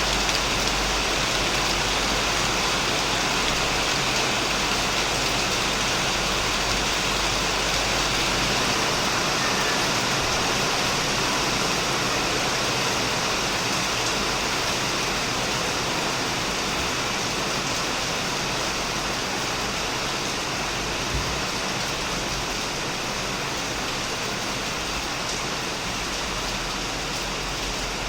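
Heavy rain falling steadily on a shed roof and surrounding plants, a dense even hiss that eases slightly toward the end, with a single louder drip or tap about two-thirds of the way through.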